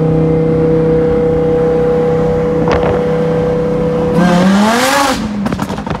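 Lamborghini Huracán's V10 running steadily at low revs, then blipped hard about four seconds in, its pitch rising and falling back within a second. Exhaust crackles and pops follow the rev.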